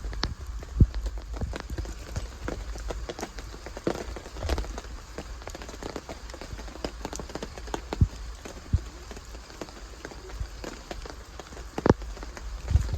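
Rain falling, with drops pattering and ticking irregularly on nearby surfaces.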